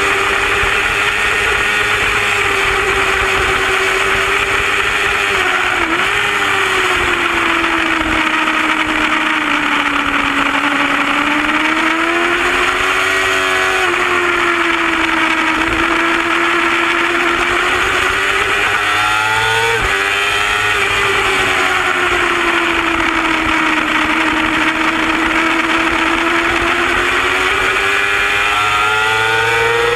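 Superbike engine running hard at racing revs, heard from a camera mounted on the bike over a rush of wind noise. The engine pitch sinks and climbs slowly through the corners, with sudden breaks in pitch at gear changes about six, fourteen and twenty seconds in.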